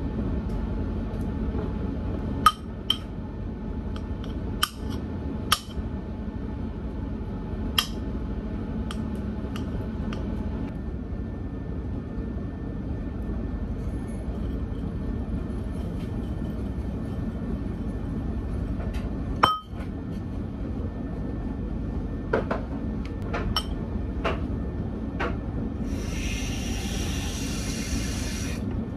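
Scattered clinks and taps of a knife and spoon against a ceramic bowl and a glass jar as banana slices and oats go in, with one loud knock partway through. Near the end, water pours for about three seconds. A steady low hum runs underneath.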